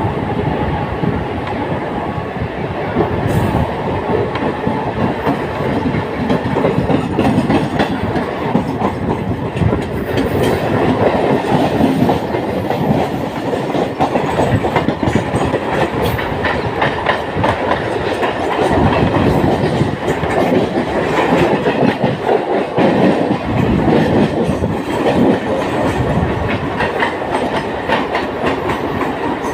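Mumbai suburban electric local train running, its wheels clattering steadily over the rail joints.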